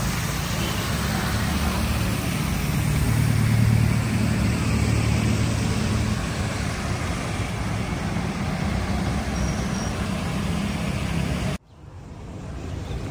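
Street traffic: a steady rumble of vehicles running and passing. It cuts off abruptly near the end, then rises again.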